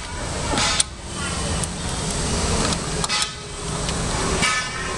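Steady background noise of traffic and construction work around the area, with a low rumble and three sharp clicks in the first few seconds.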